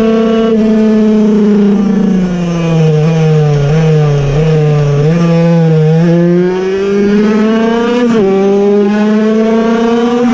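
Puch Cobra 50cc air-cooled, piston-port two-stroke racing engine running hard at high revs. The revs sag through a curve a few seconds in, then climb again, with a sudden short break in pitch about eight seconds in before it settles back to a high, steady pitch.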